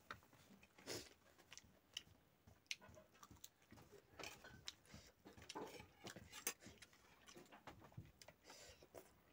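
Faint eating sounds: scattered soft clicks and smacks from chewing and from fingers working rice and chicken on a plate.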